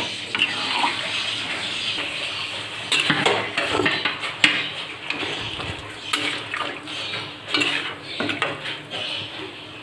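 A metal spatula stirring a wet potato and soya-chunk curry in a metal kadai, scraping and clinking against the pan in irregular bursts over a steady hiss.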